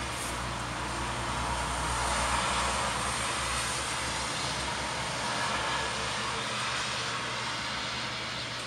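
Steady drone of an aircraft in flight: an even rushing noise over a low hum.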